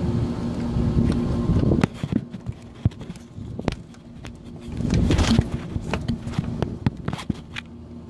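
Close handling noise of hands working on an air-conditioner condenser's capacitor wiring: scattered clicks, knocks and rubbing. A steady machine hum runs under it for the first two seconds, then cuts off suddenly.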